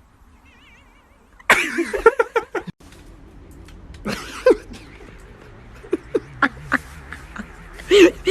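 A pet animal making short calls: a louder burst about a second and a half in, then several brief calls spread through the rest.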